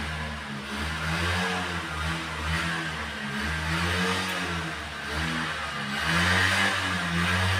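A motor engine running, its pitch rising and falling.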